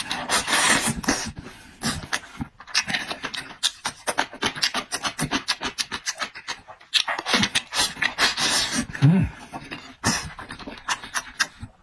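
Close-up chewing of crisp food: a rapid run of crunching, crackling bites and wet mouth smacks.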